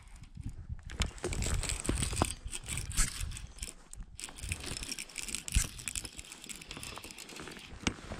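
Irregular clicks, rustling and knocks of fishing tackle being handled aboard a kayak, with a low rumble over the microphone in the first half and two sharp knocks, about three and five and a half seconds in.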